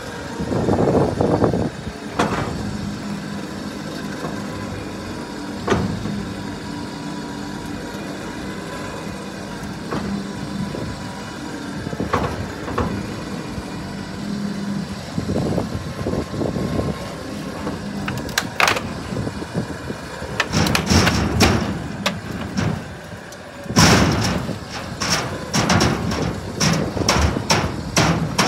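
Electric trailer winch running with a steady motor hum as it reels in its steel cable and drags a scrap motorcycle up a steel diamond-plate deck. Scattered metal knocks come throughout, with a dense run of clanks and scrapes in the last few seconds.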